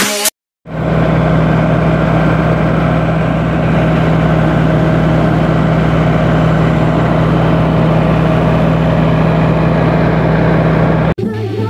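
John Deere 5090R tractor's diesel engine running at a steady speed, a constant low hum that does not change in pitch. Music cuts back in near the end.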